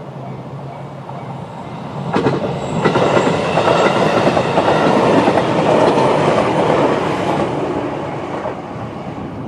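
JR 211 series electric train passing over a level crossing. Its wheels clatter over the rail joints, loudest through the middle and fading near the end. The JR standard crossing alarm repeats its tone faintly underneath.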